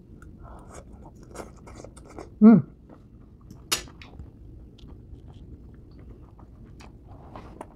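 Close-up chewing of a mouthful of stir-fried bamboo shoots, with many small wet crackles and crunches. There is a short hummed 'mm' with a falling pitch about two and a half seconds in, and a single sharp clink of a metal fork on the plate just under four seconds in.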